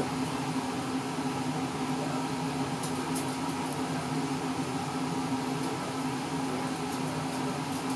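Steady room tone: an even hum and hiss with a constant low tone, like a fan or other appliance running.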